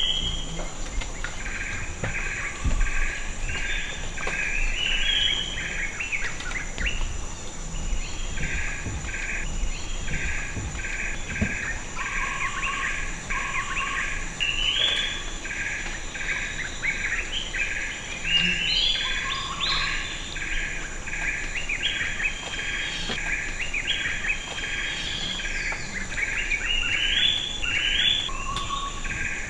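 Forest ambience: a bird calling a short note over and over, about twice a second, with some rising phrases in between, over a steady high-pitched insect drone.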